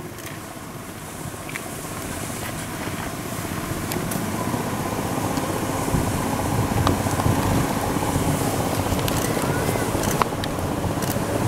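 Motor vehicle engines running, a steady rumble with a faint hum that grows slowly louder.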